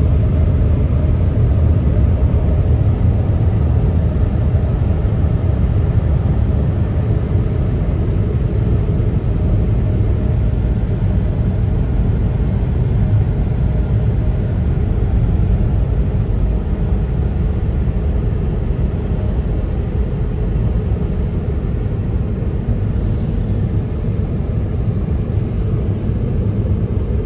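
Car wash air dryer blowers running at full blast over the car, a steady loud rushing rumble heard from inside the car's cabin.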